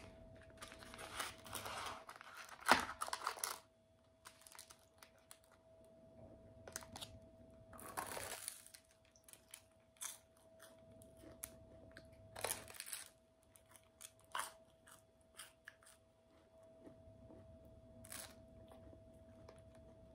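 Cardboard and paper sleeve of a fried fruit pie being torn open and crinkled in the hands, in separate bursts of tearing and crackling with pauses between them.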